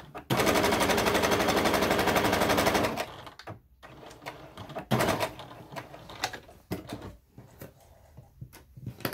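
Electric domestic sewing machine stitching a dart at speed: a rapid, even rattle for about two and a half seconds, then stopping. Scattered light clicks and rustles follow as the sewn fabric is taken out and handled.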